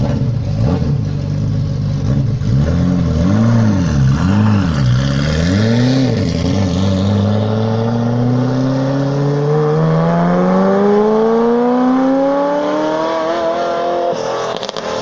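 Ferrari F40's twin-turbo V8 blipped repeatedly, its pitch swinging up and down about once a second, then accelerating hard with one long, steady rise in pitch that cuts off a second before the end.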